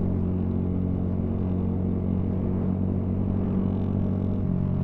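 Motorcycle engine running at a steady cruising speed while riding, with a low rumble underneath.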